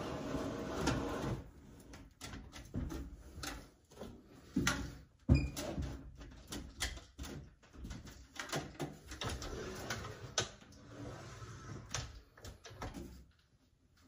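GE clothes dryer running with its exhaust duct disconnected, its blower pushing air, then shut off about a second in. After it stops, scattered light clicks and knocks.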